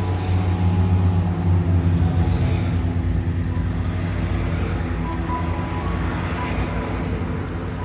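Highway traffic: a continuous rush of tyres and engines, with a low engine drone that is loudest in the first few seconds as a vehicle passes close, then slowly eases.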